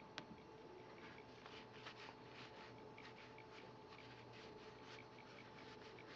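Faint, soft swishes of cardboard baseball cards sliding off one another as a stack is thumbed through, about three a second, with a light click near the start and a faint steady hum underneath.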